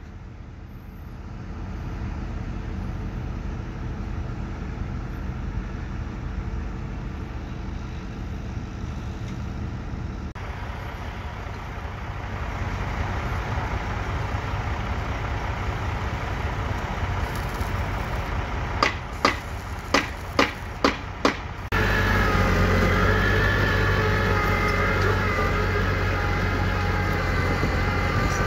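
A crawler excavator's diesel engine runs steadily, followed by site noise with a quick run of about six sharp strikes. A small crawler dozer's diesel engine then cuts in, louder than the excavator, as it drives.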